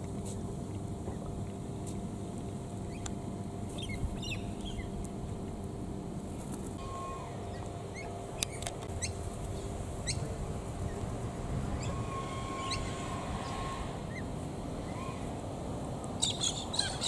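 Galahs (pink-and-grey cockatoos) giving short, scattered chirps and calls, busier near the end, over a steady low hum.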